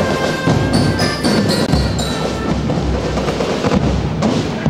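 Marching band playing, with drums and percussion to the fore.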